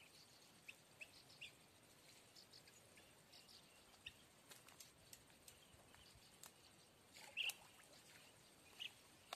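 Near-silent outdoor ambience with a few faint, short bird chirps and light ticks; the most distinct chirps come about seven and a half and nine seconds in.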